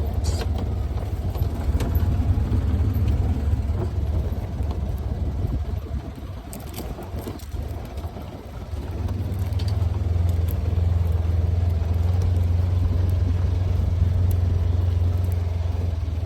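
Engine of a farm vehicle running steadily as it drives across a rough pasture, easing off and going quieter for a few seconds in the middle before picking up again.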